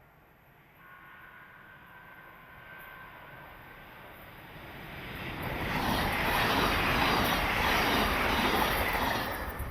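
A train approaching and passing at speed. Wheel and rail noise builds over a few seconds to a loud rush, holds for about three seconds, then starts to fall away near the end.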